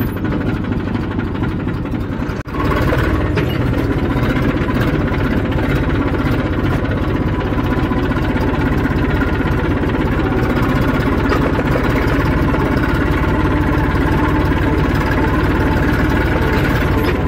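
Tractor engine running steadily. It drops out briefly about two and a half seconds in, then carries on slightly louder.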